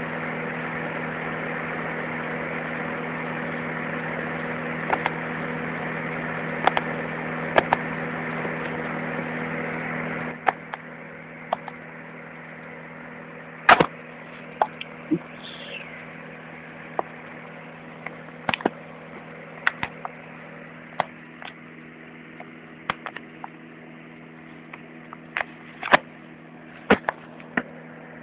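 Hot-air fan heater's blower running with a steady hum that drops off sharply about ten seconds in. Scattered sharp clicks and knocks from handling.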